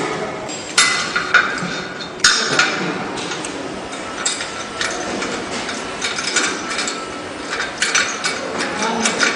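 Sharp knocks and clicks over a steady background noise: two loud knocks in the first few seconds, then a run of lighter, irregular clicks and taps.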